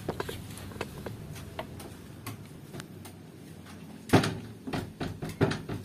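A series of light knocks and clatters, then several louder knocks close together from about four seconds in.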